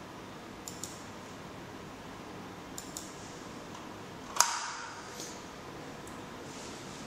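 Computer mouse button clicks: two quick clicks about a second in and two more about three seconds in. About four and a half seconds in comes a single louder knock with a brief ringing decay.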